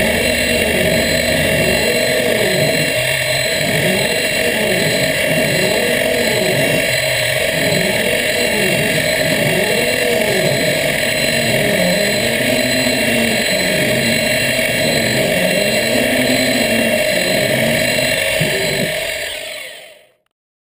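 CNC milling machine (an Optimum BF20L conversion) cutting a metal plate with a small end mill: a steady spindle whine with a lower drive sound that rises and falls in pitch again and again as the table moves along the cut. The sound fades out near the end.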